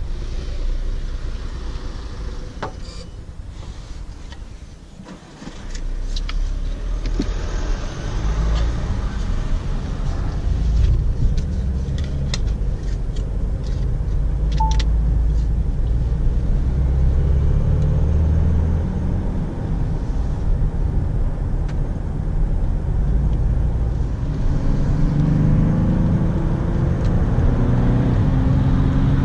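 Cabin sound of a Ford S-MAX AWD with its PowerShift gearbox pulling away and accelerating: steady engine and tyre rumble that rises after a brief lull. A few light clicks come in the first half, and the engine note climbs in pitch near the end as the car gathers speed.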